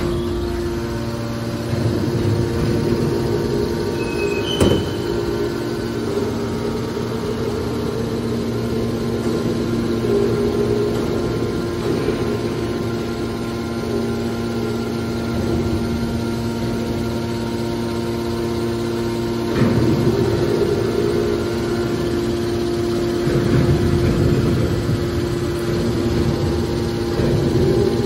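The hydraulic power unit of a car scrap baler (an electric motor driving a hydraulic pump) running with a steady hum. There is a single sharp knock a few seconds in, and a lower rumble swells louder a few times.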